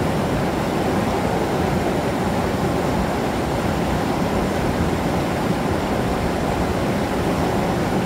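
Waterfall rushing steadily: a dense, even noise with a strong low rumble.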